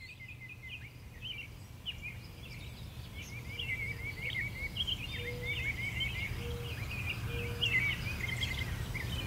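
Woodland ambience: many songbirds chirping and trilling over a steady low rumble, gradually getting louder.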